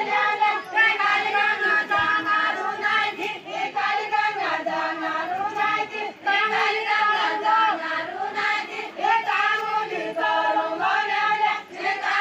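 A group of women singing a Far-Western Nepali deuda folk song together in unison, one slow wavering melody line that runs without a break.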